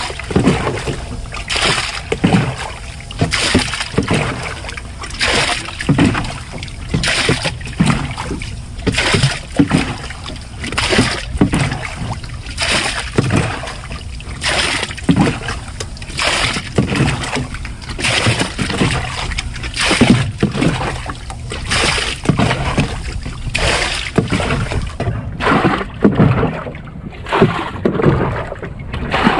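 Water being bailed out of the bottom of a flat-bottomed metal boat with a cut-off plastic jug: a scoop and a splash about once a second, steadily. The water has leaked into the hull.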